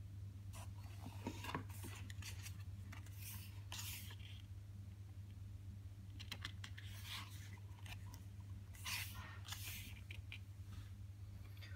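Photobook pages being turned and handled: paper rustling and sliding in several short bursts, over a steady low hum.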